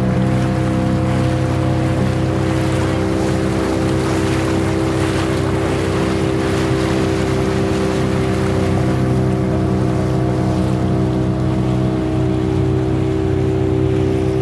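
Motor boat engine running at a steady cruising speed, a constant drone that does not rise or fall. Water hiss and wind noise run under it.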